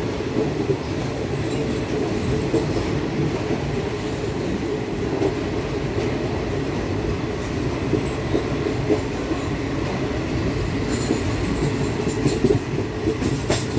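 Passenger train running along the track: a steady rumble of wheels on rails, heard from the coach's open doorway, with a few sharper clicks near the end.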